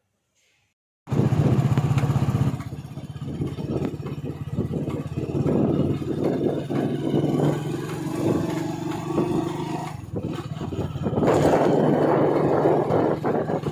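Road traffic with motorcycle engines running, starting abruptly about a second in after near silence and growing louder near the end.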